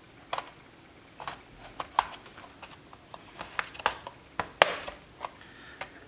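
Scattered sharp plastic clicks and snaps, about eight in all with the loudest a little past four and a half seconds in: the plastic retaining tabs of a Lenovo IdeaPad 330 laptop's bottom case popping loose as a plastic pry tool is worked along the edge.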